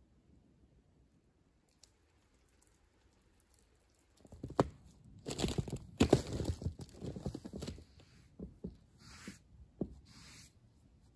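Irregular crunching and scraping, with a few sharp clicks, starting about four seconds in after a faint, steady stretch.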